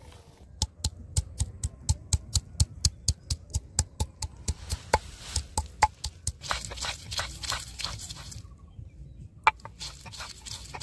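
Stone grinding block (nora) knocking garlic cloves against a flat stone grinding slab (shil): sharp stone-on-stone taps about four a second, crushing the cloves. The taps then turn irregular, with a stretch of stone scraping over stone as the crushed garlic is ground into paste, and one loud knock near the end.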